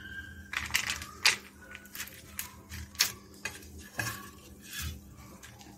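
Irregular light clicks and clinks of a steel spoon against a steel plate as crisp poha mixture is spooned onto a papad, about ten in all.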